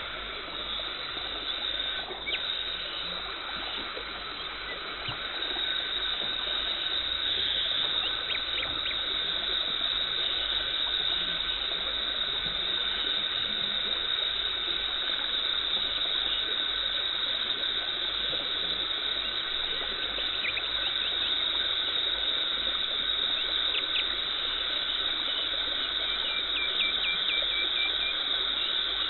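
Dental cleaning equipment running with a steady high-pitched hiss and whine, louder from about six seconds in, with a few short faint ticks.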